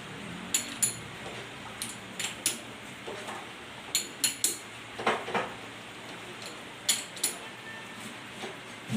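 Metal tools or workpieces being handled on a lathe, clinking and clicking against each other again and again, often in pairs.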